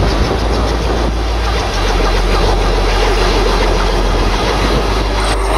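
Homemade helicopter's Volkswagen Beetle air-cooled flat-four engine running steadily, its rotor turning overhead, a dense rough sound with a heavy low rumble.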